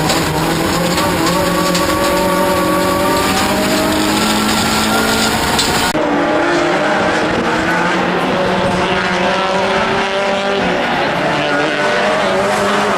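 Toyota Corolla off-road racing car's engine running hard under load, its pitch rising and falling as the driver works the throttle through the gears.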